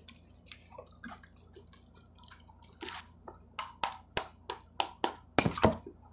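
A metal spoon tapping on the shell of a balut duck egg to crack it: a run of about eight sharp taps, roughly three a second, the last one loudest. Before them come faint, scattered crackles of eggshell being peeled.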